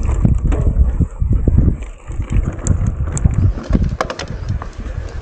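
Mountain bike rolling down a rough dirt trail: a steady rumble of tyres and wind on the microphone, broken by frequent short knocks and rattles as the bike goes over bumps.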